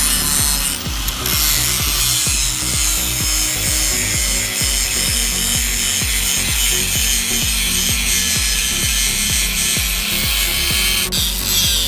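Angle grinder grinding rust off the steel head of an old cross peen hammer held in a vise: a steady, loud, high grinding hiss that turns uneven near the end.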